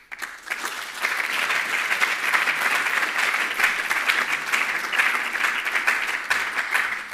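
Audience applauding, swelling over the first second, holding steady and then fading out near the end.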